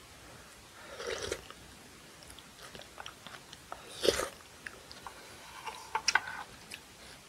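Close-miked eating sounds of rice cake dumpling soup. A short breathy blow on the spoonful comes about a second in, then a loud slurp as the spoon goes into the mouth about four seconds in, followed by wet chewing clicks.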